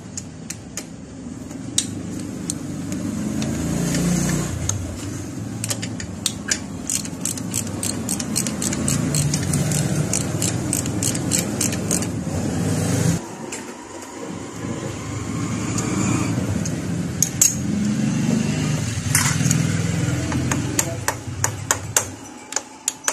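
Wrench work on the cylinder head nuts of a Honda Wave 125 engine: rapid metallic clicking over a low rumble, in two long spells with a short pause about halfway through.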